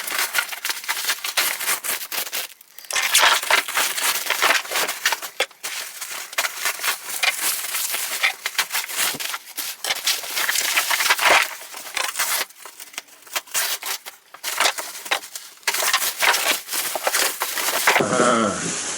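Parcel packaging being opened by hand: wrapping crinkled, crumpled and torn, a dense irregular crackling with a few brief lulls.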